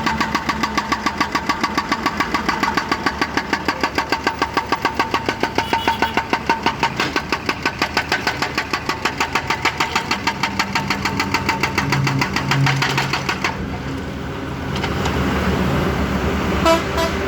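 Excavator-mounted hydraulic breaker hammer pounding with rapid, even blows over the excavator's diesel engine. The hammering stops about thirteen seconds in, leaving the engine running, and there is a short clank near the end.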